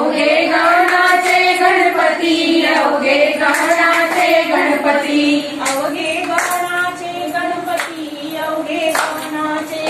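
A group of women singing a folk song together in unison, with scattered hand claps.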